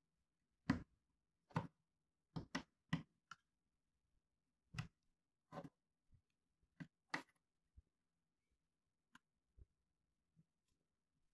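Small plastic building bricks clicking and snapping as pieces are pressed onto a toy car model: about a dozen sharp, irregular clicks, a few in quick pairs, thinning out to a few faint ticks in the last few seconds.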